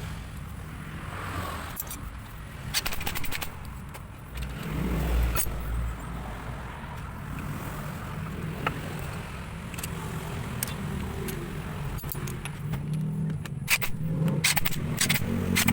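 An engine running steadily, with several bursts of sharp metallic clinks, the loudest near the end.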